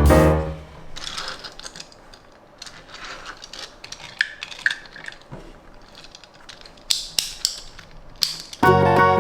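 Small hand-handling sounds: scattered light clicks, taps and rustles, with a few sharper clicks near the end. This fits a die-cast toy car and its cardboard box and plastic tray being unpacked. Background music fades at the start and comes back near the end.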